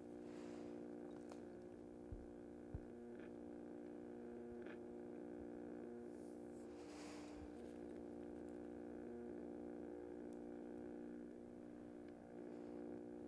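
Low steady hum of several held tones, with two faint sharp clicks about two seconds in and a brief soft rush of noise about seven seconds in.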